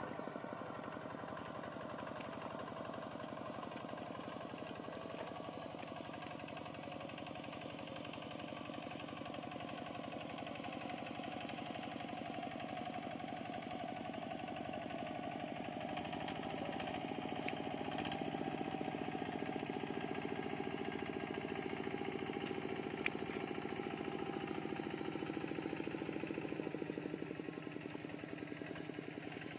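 A small engine running steadily with a rapid pulsing beat, growing louder a little past halfway and easing off again near the end.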